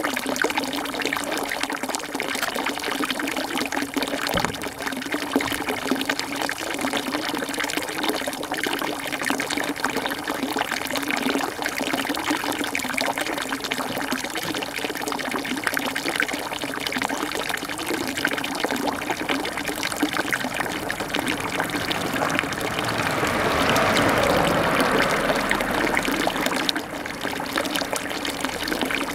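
Steady trickle and patter of water. A louder rushing swell builds about two-thirds of the way through and eases off a few seconds later.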